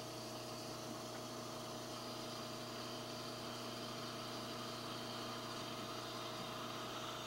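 Espresso machine steam wand running with its tip sunk deep in milk in a stainless steel pitcher, a steady hiss as the milk heats.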